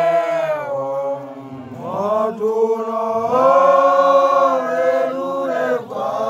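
Voices chanting a slow song in long held notes, phrase after phrase, with short breaths between them.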